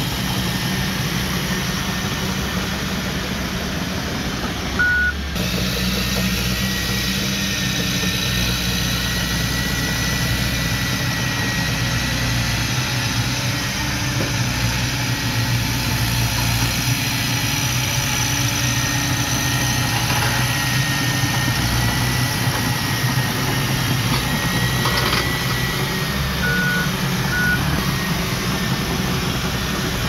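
Komatsu D31P crawler bulldozer's diesel engine running steadily as it works the soil, with a thin high whine over the low engine drone. A short beep sounds about five seconds in, and two more come near the end.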